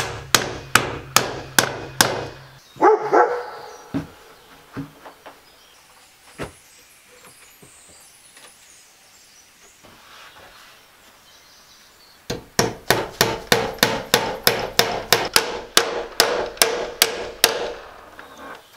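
Hammer driving nails through an iron strap hinge into wood, quick strikes about four a second with a metallic ring. The strikes stop about two seconds in, leaving a few separate knocks and then a pause of several seconds, before a second run of strikes near the end.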